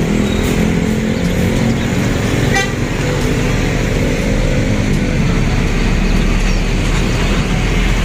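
Hino city bus engine running steadily as the bus pulls up to a stop, amid city traffic noise, with a brief toot about two and a half seconds in.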